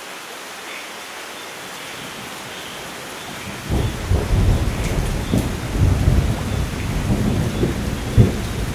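Steady rain hissing, then about three and a half seconds in a loud thunder roll breaks in and rumbles on, with sharp cracks inside it.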